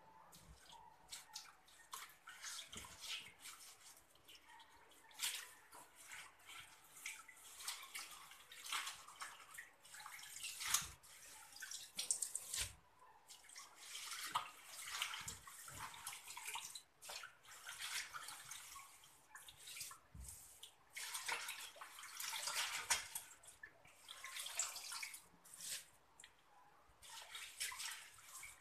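Cassava leaves being swished and rubbed by hand in a basin of water, with irregular splashing and sloshing that comes in uneven surges.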